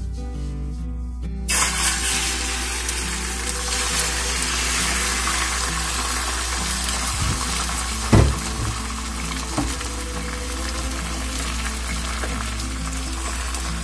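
Beaten egg frying in hot oil in a nonstick pan to make a thin egg sheet: a steady sizzle that starts suddenly about a second and a half in as the egg hits the oil. A single knock about eight seconds in is the loudest moment, over background music.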